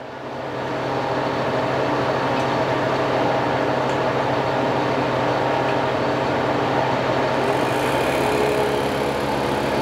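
Harvest Right premier vacuum pump starting up for the freeze dryer's vacuum test. It builds to a steady running hum within about a second, and its tone shifts slightly about three-quarters of the way in as it pulls the chamber down.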